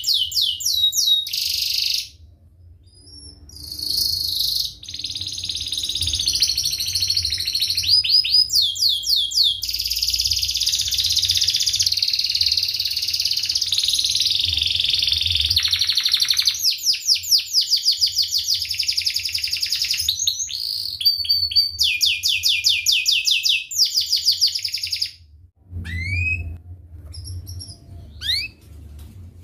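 Domestic canary singing a dense, fast song of rapid trills and rolls in long phrases. It breaks off briefly about two seconds in, and near the end it gives only a few short rising chirps.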